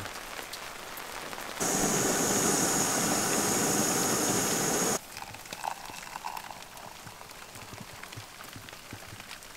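Rain pattering, then from about one and a half seconds in a Jetboil-type butane canister stove runs with a loud steady hiss and rumble as its water comes to the boil, cutting off abruptly at about five seconds. After that, quieter rain and hot water poured into a steel mug.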